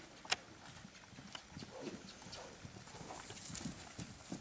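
Hoofbeats of a trotting horse on grass, soft dull thuds in an uneven run. One sharp click about a third of a second in stands out above them.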